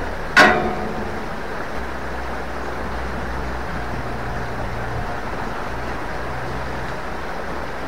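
A single sharp metallic clang with a short ringing decay, about half a second in, over the steady rush of a small river flowing fast beneath the bridge.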